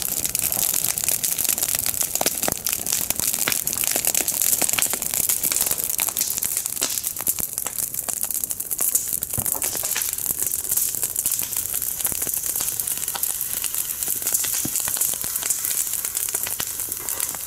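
Wood campfire burning, crackling and popping with a dense run of small snaps over a steady hiss.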